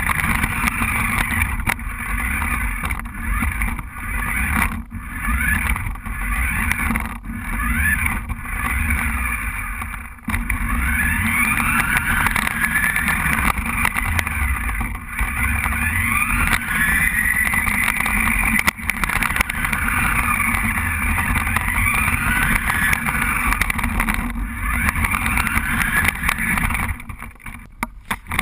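Remote-controlled toy car's motor whining, its pitch rising and falling over and over as the car speeds up and slows down, over a steady low rumble.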